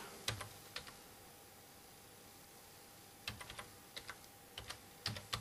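Faint typing on a computer keyboard: a couple of single keystrokes, then short runs of taps from about three seconds in, over a faint steady hum.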